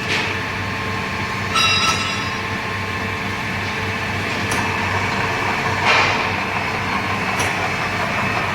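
Radial drilling machine running with a steady mechanical hum, with a few sharp metallic clinks.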